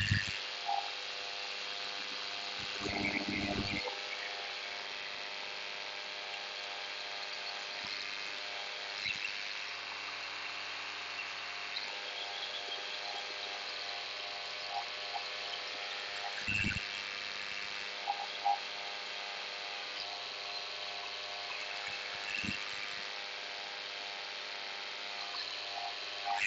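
Paramotor engine and propeller running at a steady speed in flight, a constant buzzing drone over rushing air, with a few brief low thumps.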